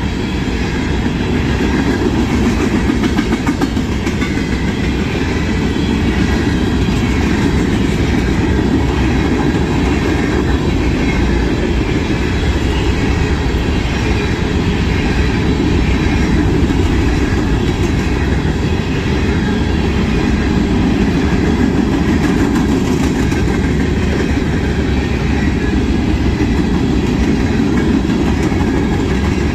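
Freight train of covered hopper cars rolling past close by: a steady, loud rumble of steel wheels on rail that keeps an even level throughout.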